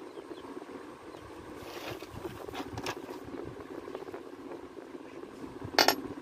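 Steady low background hum, with light handling rustles of a nylon cord on a tabletop and one sharp click near the end as the cord is picked up.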